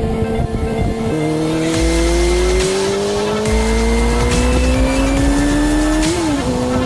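Suzuki GSX-R600 K1 inline-four engine accelerating under load, its pitch climbing steadily for about five seconds, then dropping sharply at an upshift near the end and climbing again. Wind buffeting rumbles underneath.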